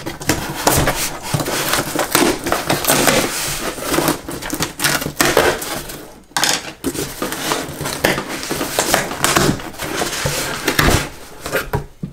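Cardboard shipping box being torn open by hand: flaps and tape ripping and scraping, with cardboard and paper crinkling in irregular bursts. There is a brief lull about halfway through.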